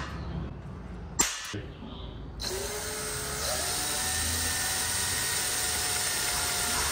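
Cordless drill starting up and boring a hole through an electric-fan shroud, its motor whine rising in pitch and then holding steady. A sharp click comes about a second in.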